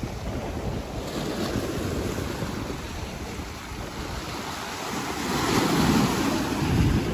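Ocean surf washing ashore, with wind buffeting the microphone; a wave swells louder about five seconds in.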